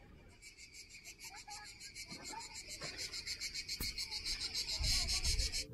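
Cicadas singing: a fast, evenly pulsing high buzz that grows louder and then cuts off suddenly.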